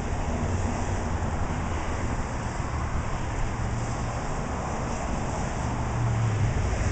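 Steady rain and wind noise over a low vehicle hum that grows louder near the end.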